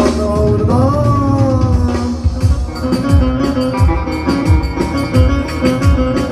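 Loud Turkish folk dance music: a held melody line bends up and then slides down, and a steady drum beat comes in about two seconds in, at roughly three beats a second.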